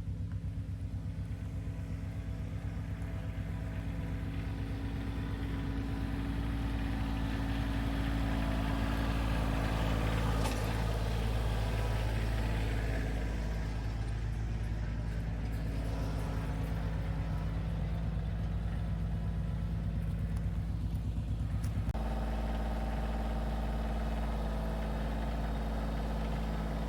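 An engine running steadily, with a stack of even tones. Its note changes abruptly about three quarters of the way through.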